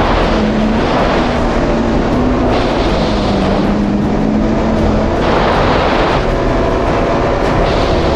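Yamaha GP1800R SVHO jet ski's engine running steadily while under way, mixed with the rush of wind and water.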